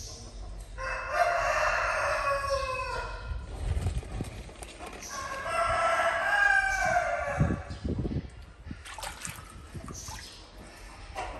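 A rooster crowing twice, each crow about two and a half seconds long and dropping in pitch at the end.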